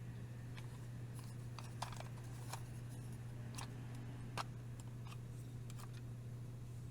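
Scattered light clicks and taps of items being handled, at irregular intervals, over a steady low hum.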